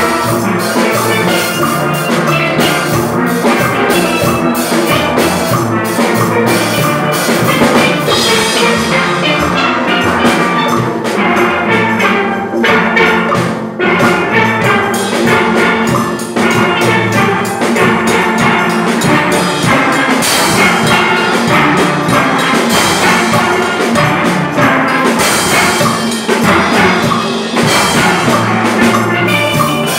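A steel band playing: many steel pans struck with sticks carry a fast run of ringing notes over a drum kit beat.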